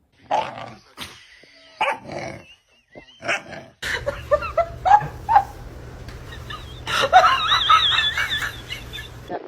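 A dog barking in short, separate bursts. After a cut it gives higher yips, then a long warbling, wavering howl-like whine over a steady low hum.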